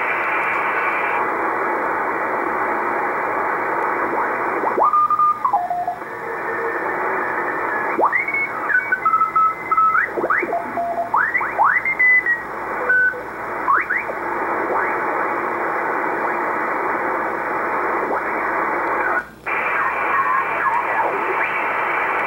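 Icom IC-R8500 shortwave receiver being tuned across the 80-metre amateur band: a steady hiss of band noise, with whistling tones that slide up and down in pitch as the dial sweeps across signals, mostly between about 5 and 14 seconds in. The hiss drops out briefly about 19 seconds in.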